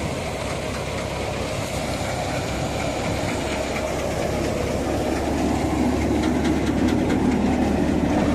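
A paddy thresher driven by a Deutz-Fahr Agrolux 50 tractor's diesel engine, running steadily under load as rice sheaves are fed through, with the threshing drum rattling. It grows somewhat louder from about five seconds in.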